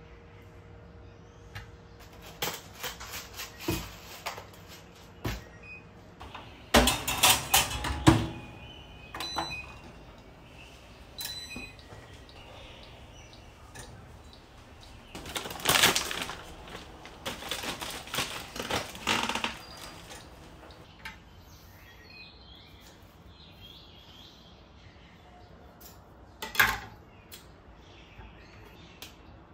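Intermittent kitchen handling sounds: clatters and knocks of a dish and utensils on the counter and a toaster oven being loaded, with quiet stretches between them. The loudest clatters come about 7 to 8 seconds in and again around 16 seconds, and there is a single sharp knock near the end.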